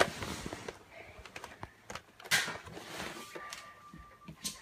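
Handling rustle and scattered light knocks from a phone being carried by hand, with a short breathy hiss about two seconds in and a faint thin tone for about a second near the end.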